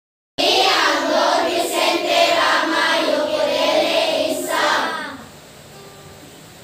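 A large group of children's voices in unison for about five seconds, then stopping, leaving quiet room tone.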